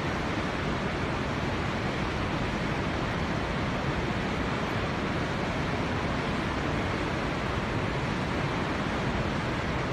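Avalanche snow pouring across a highway, a steady rushing noise like surf or a waterfall.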